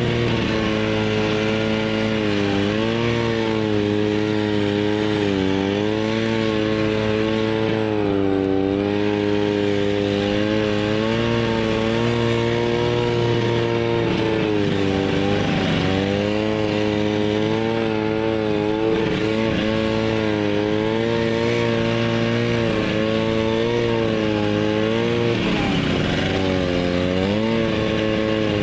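A small petrol engine running continuously, its pitch rising and falling smoothly again and again as the throttle and load change.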